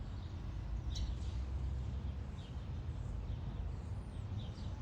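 Scattered short, high bird chirps and a brief whistle from small songbirds, over a steady low rumble.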